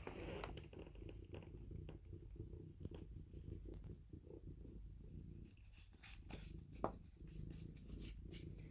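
A cat purring, a low steady rumble, with faint scattered clicks and one sharper click near the end.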